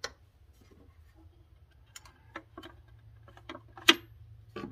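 Handling noise from a nibbler's hard metal case: scattered small clicks and knocks as a part wedged in the foam insert is worked loose, with one sharper click about four seconds in.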